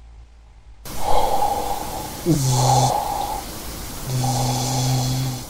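Sound effects for an animated logo intro: a loud, snort-like noisy rush begins about a second in, with a low tone that drops in pitch and holds briefly. A second held low tone with the same rush comes near the end.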